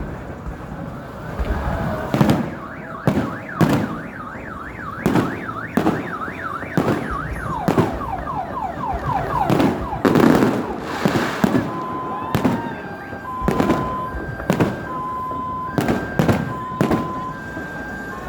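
Fireworks bursting with repeated sharp bangs, while a car alarm sounds: first a fast up-and-down warble, then, from about halfway, alternating high-low two-tone beeps.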